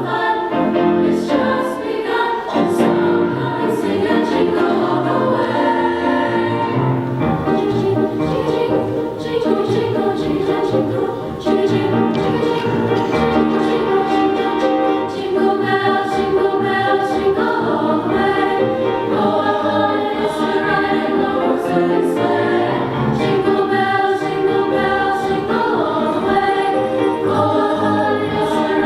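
Women's choir singing, many voices holding and moving through sustained notes together.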